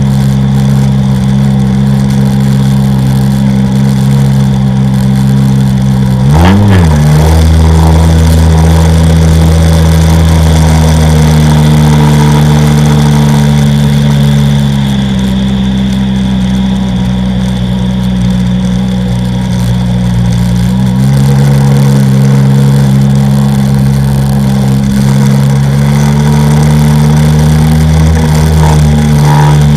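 Sea-Doo XP personal watercraft's two-stroke engine running at speed under the rider. About six and a half seconds in the revs drop sharply and climb straight back. The engine eases off from about 14 seconds and picks up again about 21 seconds in.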